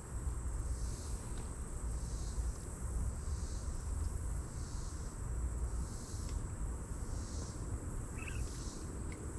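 Chorus of summer insects trilling steadily, with a regular pulse about once a second, over a low rumble.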